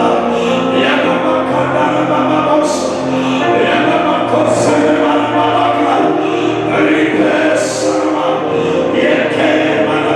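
Many voices singing a gospel worship song together, with held notes and a bright splash in the highs every two or three seconds.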